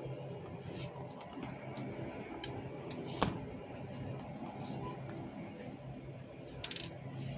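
Steady low hum of store freezer cases running, with scattered sharp clicks (the strongest about three seconds in) and a brief rustle near the end.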